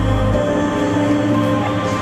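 Background music of sustained, held chords; a deep bass note drops out about half a second in.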